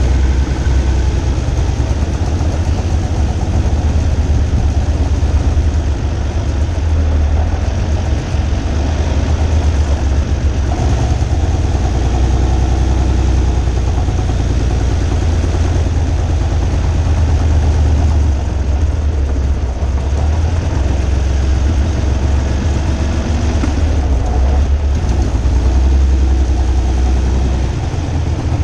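Engine of a homemade twin-engine car running while it drives, a steady deep drone with small swells in the revs.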